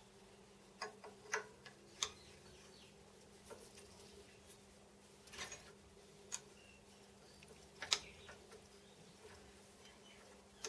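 Irregular light clicks and taps of small metal parts and hand tools being handled and set down while a machine's compound slide is assembled, about a dozen in all with the loudest near the end, over a faint steady hum.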